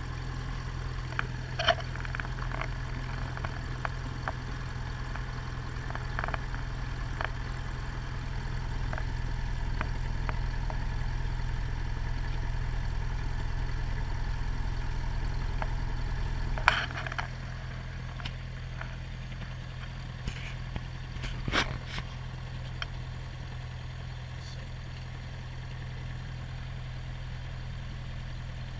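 Cessna 172P's four-cylinder Lycoming engine idling after start, heard from inside the cockpit. It runs a little louder for several seconds, then drops back about halfway through. A few sharp clicks sound over it.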